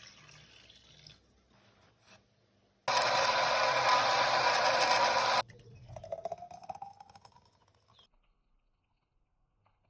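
Countertop blender running for about two and a half seconds on a smoothie of spinach, avocado, banana, yogurt, almond milk and ice, starting and stopping abruptly. Afterwards comes a fainter sound of thick liquid being poured, with a tone rising in pitch as it fills, before everything goes quiet.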